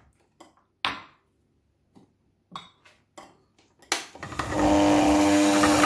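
A few scattered knocks and clicks, then about four seconds in an electric juicer's motor starts up and runs loud and steady with a constant whine, extracting apple juice.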